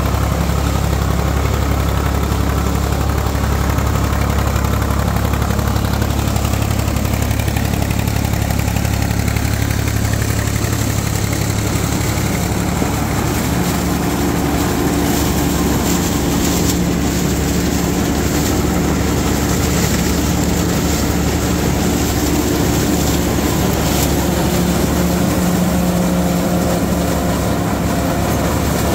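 IMT 549 DV tractor's diesel engine running steadily under load as it drives a SIP Tornado 80 trailed corn picker through the PTO, with the picker's working parts running along with it. The engine tone changes about halfway through.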